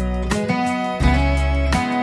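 Background instrumental music: plucked guitar-like strings over sustained low bass notes, with new notes struck every half to three-quarters of a second.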